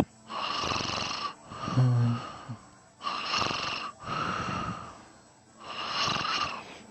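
A sleeping man snoring, three long breathy snores about three seconds apart. A short low voiced sound comes in the middle of the second snore.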